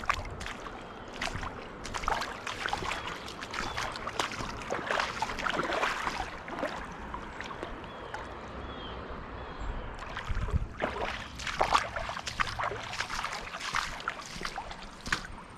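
Footsteps wading through shallow river water: irregular splashing and sloshing, with scattered knocks.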